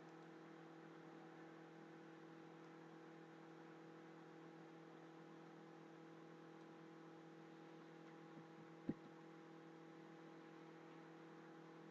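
Near silence: a faint steady electrical hum from the recording, with a single faint click about nine seconds in.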